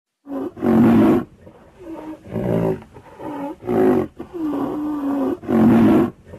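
A series of loud animal roars, about six within a few seconds, each under a second and some bending in pitch, with quieter calls in between.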